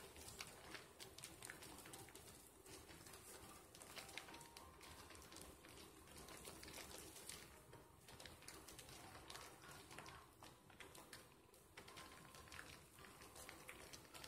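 Faint, wet squishing and crackling of thick bar-soap lather being worked between hands, made of many quick small clicks.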